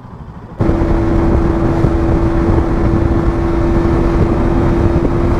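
Motorcycle cruising at a steady speed: a constant, even engine note under dense wind noise, cutting in suddenly about half a second in.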